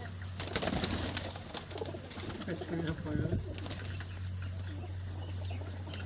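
Domestic pigeons cooing in short low calls, with a steady low hum and scattered light clicks and rustles.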